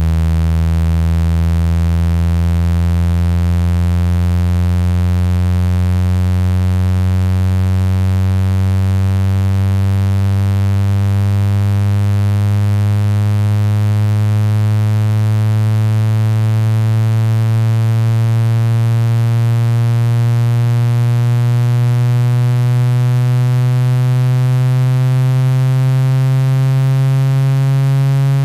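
Generated low buzzing tone, rich in overtones, gliding slowly and steadily upward in pitch: a speaker-cleaning tone meant to vibrate water and dust out of a phone speaker.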